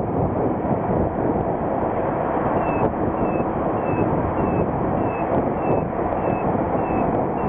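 Wind rushing over the microphone with the running noise of a motorcycle cruising at speed on a highway. From about two and a half seconds in, a short high beep repeats about twice a second.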